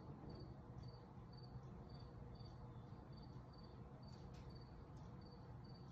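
Faint insect chirping, short high cricket-like chirps repeating about twice a second, over a low steady room hum.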